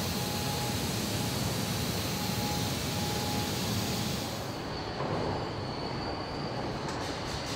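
Steady machinery noise of a van assembly plant, a full hissing din that loses its high hiss about four and a half seconds in and goes on as a lower rumble with a faint steady whine.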